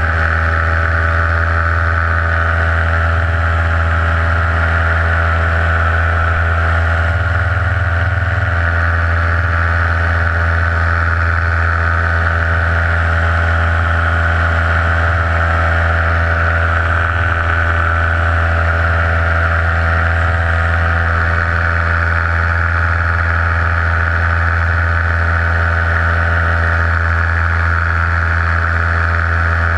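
Paramotor engine running steadily at a constant throttle, giving an even, unchanging drone.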